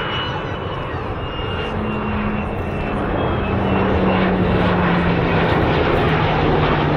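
Military aircraft flying past in an airshow display: a loud engine roar that builds steadily, with a low engine tone slowly falling in pitch as it goes by.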